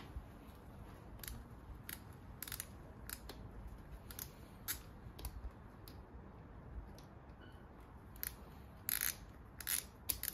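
Irregular small clicks and taps of fingers and metal parts being handled at a motorcycle's Keihin FCR carburetor, with a slightly longer, louder scrape about nine seconds in.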